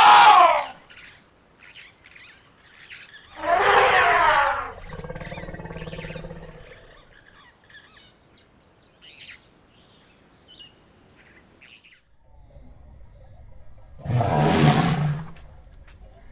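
Elephants calling. A loud trumpet blast comes right at the start, and a second one about three and a half seconds in trails into a lower, steadier call lasting a couple of seconds. A third, lower-pitched call comes near the end.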